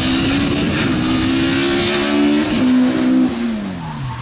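Ford Escort Mk2 rally car's engine accelerating hard past on a sprint run, its note climbing steadily. Near the end the pitch falls and the sound fades as the car pulls away into the distance.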